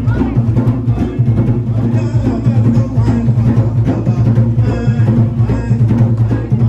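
Loud music with a steady drum beat and a heavy bass line.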